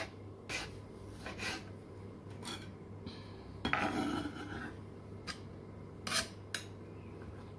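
Knife slicing a tomato in short, irregular cutting strokes, with one longer stroke about three and a half seconds in.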